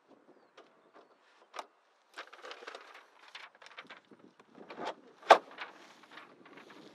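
Clicks, knocks and rustling of hands working inside a glider's cockpit, with one sharp, loud click about five seconds in.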